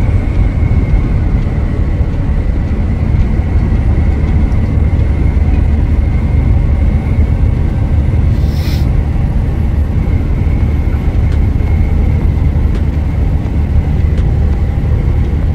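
Steady low drone of a semi-truck's engine and road noise, heard inside the cab at highway speed, with a brief hiss about eight and a half seconds in.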